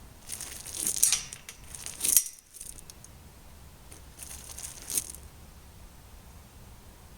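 Two spells of crinkling, rustling noise, the first about two seconds long with sharp peaks, the second about a second long.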